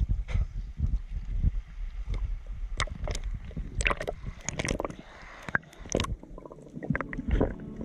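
Water sloshing and gurgling around an action camera at the surface, then heard underwater as the snorkeler dives: irregular crackles and clicks over a low rumble of moving water.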